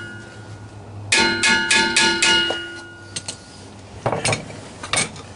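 A hammer beating on metal, a quick run of about five blows that leave the metal ringing, then two duller knocks near the end. It is steel being hammered to free a rear axle seal stuck in the axle housing, which they believe was glued in.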